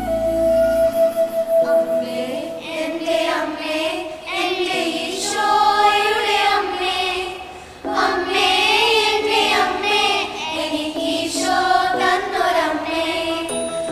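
Children's choir singing together. The voices drop away briefly a little past halfway through, then come back in.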